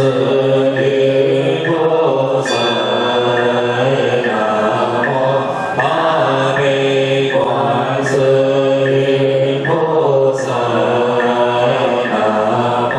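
Buddhist monks and a congregation chanting liturgy together in a steady melodic unison, the monks' voices carried through microphones and a PA. A soft knock keeps an even beat about every two-thirds of a second.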